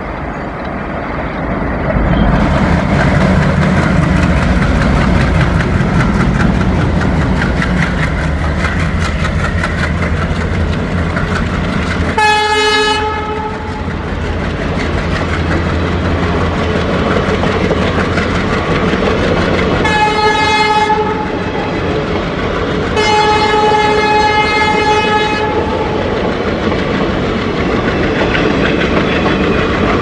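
Passenger train hauled by twin diesel locomotives passing at speed: engine rumble and a rapid clatter of wheels over the rail joints. The locomotive's horn sounds four times: short blasts about 12 and 20 seconds in, a longer one a few seconds later, and another starting near the end.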